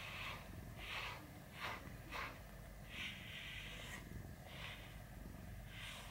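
Slicker brush with metal pins drawn through a cat's fur: repeated scratchy swishes, about one stroke a second, with two short quick strokes about two seconds in.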